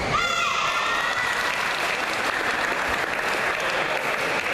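Spectators clapping in applause around a badminton court, as a rally ends. It comes just after a short squeak of a player's court shoe on the floor right at the start.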